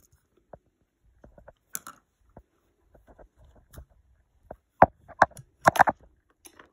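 Handling noise from hands working on a plastic model ship: scattered small clicks and taps, with one sharp click just before five seconds and a cluster of louder knocks shortly after.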